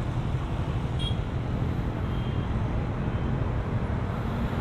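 Steady road noise of a motor scooter ride: engine and wind rumble with passing traffic, even throughout.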